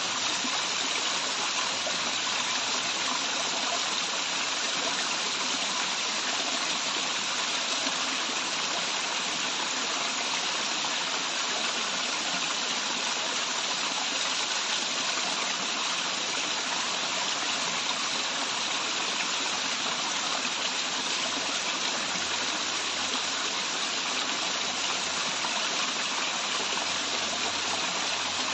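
Waterfall: water falling and running in a steady, unbroken rush, the hiss strongest in the upper range.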